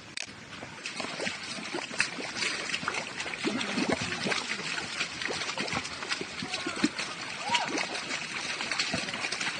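Feet splashing through shallow water and mud, with water trickling. It grows louder about a second in, a thick run of small splashes and steps.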